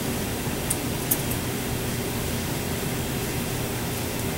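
Steady low hum of room ventilation, with a few faint light metal ticks about a second in as a feeler gauge is worked around the coupler face.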